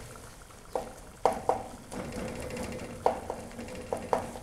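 A slotted spatula scraping and knocking against a non-stick pan as tomatoes are stirred into frying meat, about seven separate strokes. A low sizzle runs underneath.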